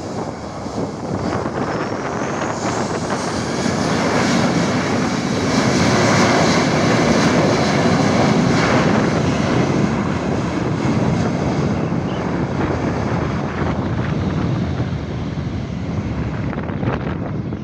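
Boeing 737-800's CFM56-7B turbofan engines spooling up for take-off. A rising whine comes about two seconds in, then steady jet engine noise that is loudest in the middle and eases off as the aircraft rolls away down the runway.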